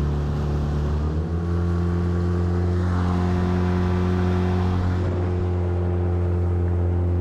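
9.9 hp Mercury outboard motor running steadily at speed, its pitch stepping up a little about a second in.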